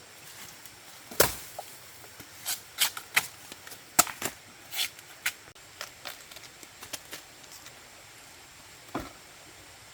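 A series of irregular sharp knocks and snaps, loudest about a second in and again about four seconds in, with a lone knock near the end.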